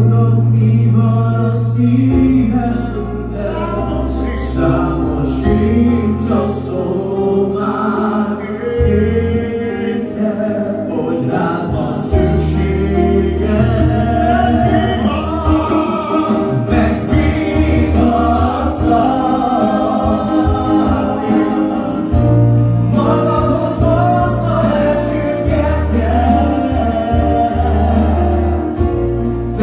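Live gospel praise song: a man singing lead into a microphone, joined by a woman's voice, over a Yamaha electronic keyboard playing sustained chords and a bass line, all through a PA.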